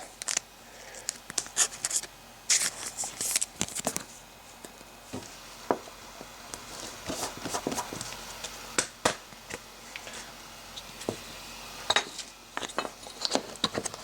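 Baseball trading cards being handled and sorted, with scattered light clicks, taps and brief scraping rustles of card stock.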